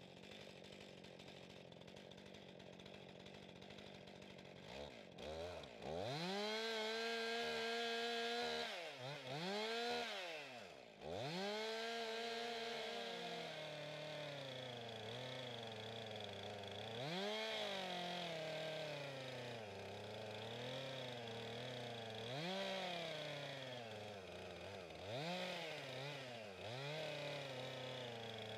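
Petrol chainsaw idling for about five seconds, then revved high and plunge-cut into a log-house corner timber to cut a mortice. Its engine pitch sags under load and picks up again over and over as the bar works into the wood and the throttle is eased and reopened.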